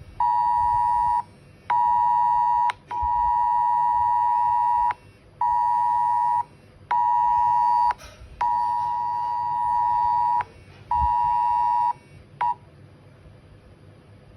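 Mobile phone emergency alert tone from a cell-broadcast test alert: a loud two-pitch beep near 1 kHz sounding in on-off pulses, mostly about a second long with a few of about two seconds, ending in a brief final blip.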